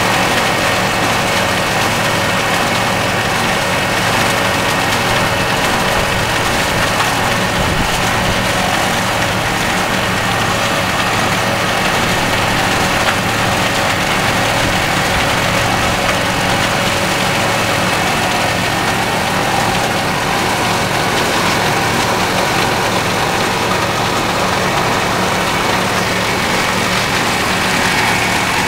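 Belt-driven 1907 Berlin milling machine running steadily, powered by a Caterpillar D330 diesel engine, as a 2x6 board is fed through and milled into shiplap. A few steady high tones sit over the even engine and machine noise.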